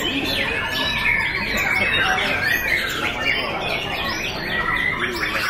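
Several caged white-rumped shamas (murai batu) singing at once: a dense, unbroken stream of overlapping, quickly gliding whistled phrases.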